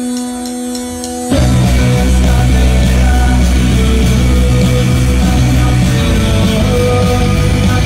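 Live rock band on stage: a held keyboard chord, then about a second in the full band comes in loud with electric guitars, bass and drums.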